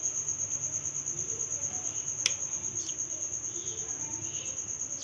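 A cricket chirping continuously, a steady high-pitched pulsing trill. About two seconds in, a single sharp click as the serving spoon touches the bowl.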